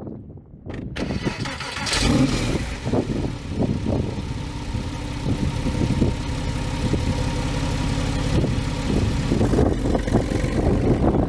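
A car door shuts, then about two seconds in the Porsche 996 Carrera 4S's water-cooled flat-six starts with a flare of revs and settles into a steady idle.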